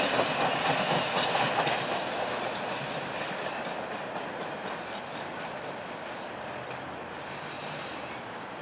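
TTC T1 subway train running away over track switches, its wheels squealing in the first few seconds, its sound fading steadily as it draws off.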